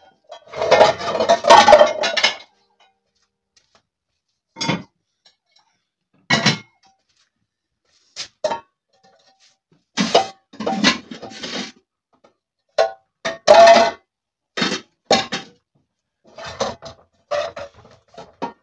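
Metal cooking pots and basins clanking and clattering as they are picked up and stacked, in many separate clatters with silent gaps between, some ringing briefly. The longest, loudest clatter comes near the start.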